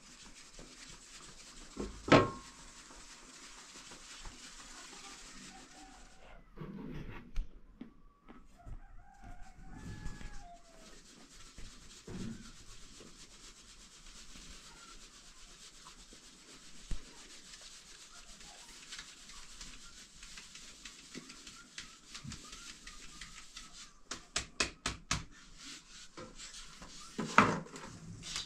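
Steady rubbing sound with scattered knocks, and a quick run of about six sharp taps near the end.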